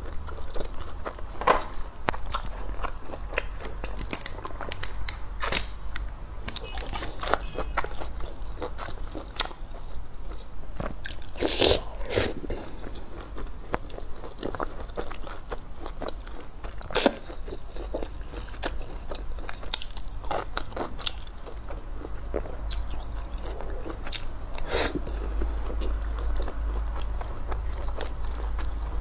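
Close-miked chewing with irregular sharp crunches as a person eats crisp-crusted grilled stinky tofu.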